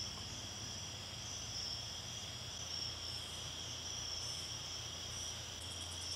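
Faint, steady insect chorus of crickets trilling, with a low hum beneath it. Near the end comes a brief run of fast, high ticks.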